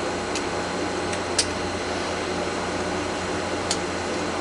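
A few light metallic clicks, the sharpest about a second and a half in, as a sharp tool pushes at the C-clip on the back of a Master Lock 930 padlock to pop it off. A steady hum runs underneath.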